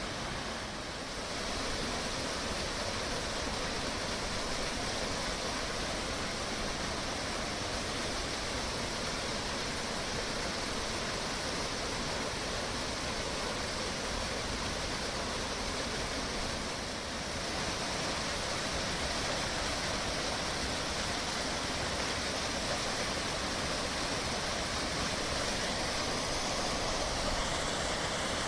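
Small waterfall on a mountain stream, its water falling and rushing in a steady, even noise that dips slightly twice.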